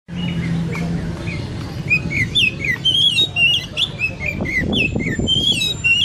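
Caged songbirds singing in a bird-song contest: a dense stream of quick whistled chirps and short trills, one note after another, over a low background rumble.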